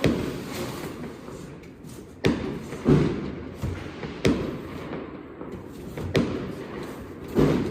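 Large consumer firework cake firing its shells one after another: about six sharp thumps, one to two seconds apart.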